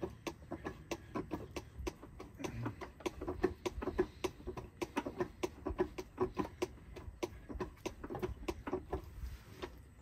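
Hand pump on a fluid bottle being worked, making a quick, irregular run of small clicks several times a second as fluid is pumped into the truck's transfer case.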